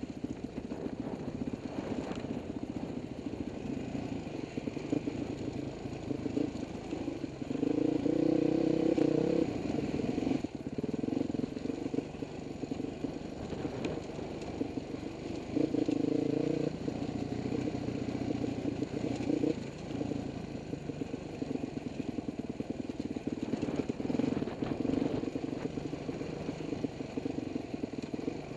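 Dirt bike engine running under changing throttle while riding a rocky trail, heard from the rider's helmet. Louder pulls on the throttle come about eight, sixteen and twenty-four seconds in.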